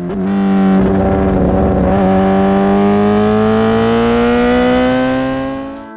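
Kawasaki ZX10R inline-four with a Brocks titanium CT megaphone exhaust, running hard at high revs with its pitch climbing steadily as it pulls through one gear, then fading away near the end.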